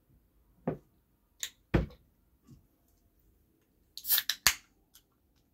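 A few separate knocks as things are set down on a table, then an aluminium soda can is cracked open about four seconds in: a sharp pop of the tab with a short fizz, the loudest sound here.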